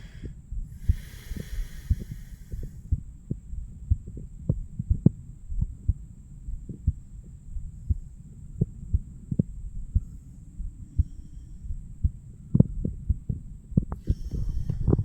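Heartbeat heard through a stethoscope on a man's chest: a steady run of short, low thumps over a low rumble. A brief hiss comes about a second in.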